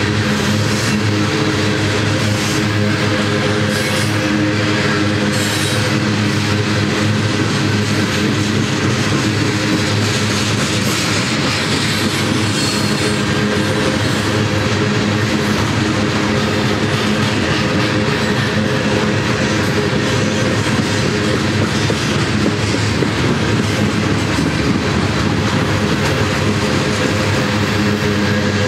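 Loaded coal train's cars rolling past close by: a steady, loud rumble of steel wheels on the rails with a constant low hum.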